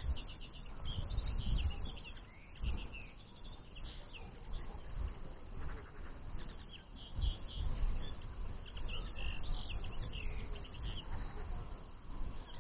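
Common linnets twittering in quick, chattering bursts of short notes, with pauses between, over a low rumble of wind on the microphone.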